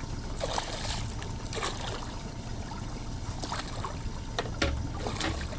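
Water splashing and trickling beside a small fishing boat in short, irregular spurts, over a steady low rumble.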